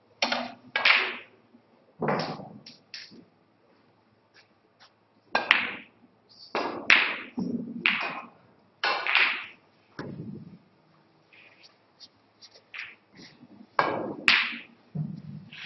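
Snooker balls and cue clacking: a series of sharp knocks, in clusters a few seconds apart, as shots are played.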